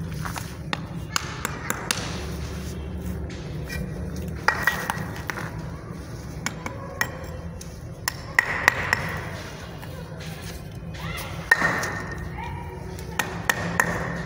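Bricks being set and tapped into mortar with a mason's hand tool: a run of sharp clinks and knocks, with short ringing scrapes every few seconds.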